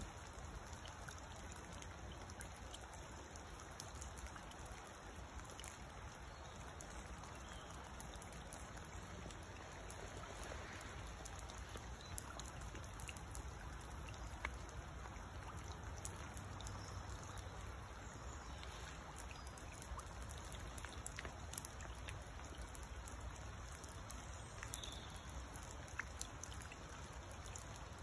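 Light rain falling on muddy puddles: a faint steady patter with scattered sharper single drips.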